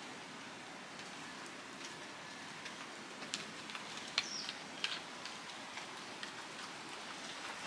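Steady rain falling on the surrounding forest foliage. About three to five seconds in come a few sharp clicks from a plastic water bottle being lowered and handled.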